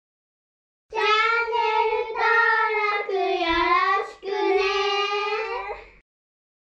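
Young children singing a short phrase together in high voices, in four held phrases starting about a second in and stopping near the end.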